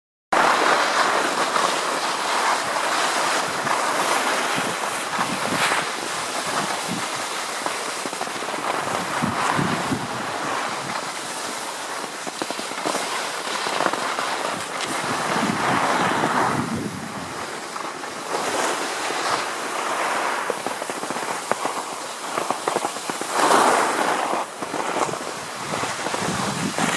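Skis sliding and scraping over hard-packed piste snow: a steady rushing hiss full of crackly scrapes, swelling louder at the turns.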